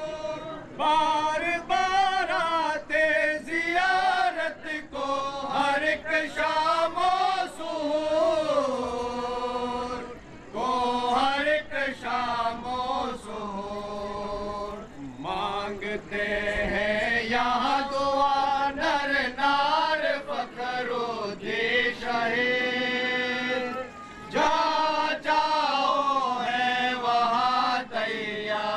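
Devotional chanting: voices singing a slow religious recitation in long, wavering melodic phrases, with brief pauses between phrases.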